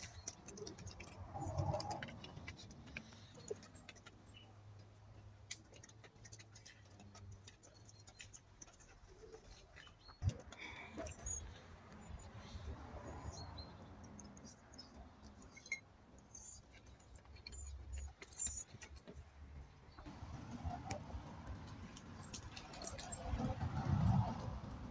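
Quiet background with scattered small clicks and rustles, a sharp knock about ten seconds in, and louder knocks and rustling near the end.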